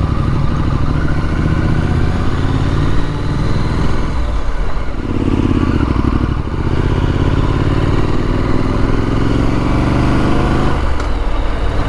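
Triumph Street Scrambler's 900 cc parallel-twin engine pulling with the revs rising, easing about four seconds in, climbing again, and dropping off near the end.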